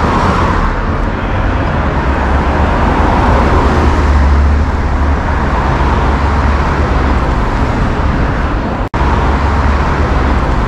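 Steady city street traffic: car engines and tyres running past at a road intersection, with a strong low rumble. The sound drops out for an instant about nine seconds in.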